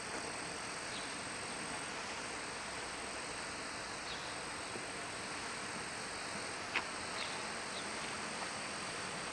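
Steady hiss of an FB-8030 colour-changing smoke fountain burning and pouring out blue smoke, under a thin steady high tone. There are a few faint short chirps and one sharp click about two-thirds through.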